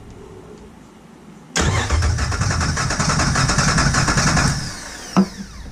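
Jeep Wrangler TJ's 4.0-litre inline-six turned over by its starter motor for about three seconds during a compression test, starting suddenly and ending with a falling whine as the starter spins down. A sharp click follows soon after.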